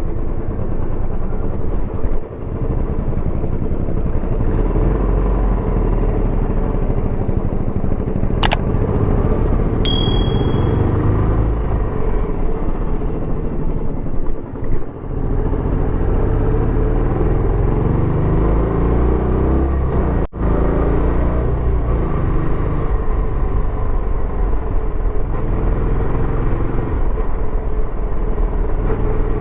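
Royal Enfield Bullet 350X's single-cylinder engine running through its stock exhaust on the move, its pitch rising and falling with throttle and gear changes. A sharp click comes about eight seconds in and a short high beep about ten seconds in.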